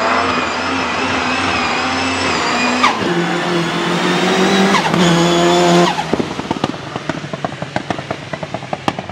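Nissan 200SX S13's turbocharged engine held high in the revs through a drift, dipping briefly about three seconds in and then pulling again. About six seconds in the revs drop off suddenly as the throttle closes, followed by a run of quick sharp pops that fade away.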